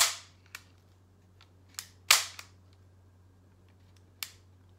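CO2 airsoft pistol firing twice, about two seconds apart, each a sharp pop with a short fading tail, with faint clicks in between. The shots are weak, the BBs barely leaving the barrel, which he puts down to a reused, nearly spent CO2 cartridge.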